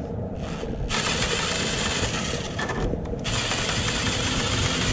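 Cordless impact driver (Milwaukee M12 Fuel) running in two bursts with a short pause between them, spinning a 12 mm exhaust hanger bolt out of a motorcycle frame.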